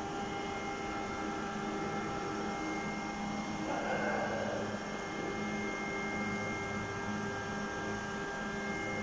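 Steady machine hum holding several constant tones, with a brief rushing noise about four seconds in.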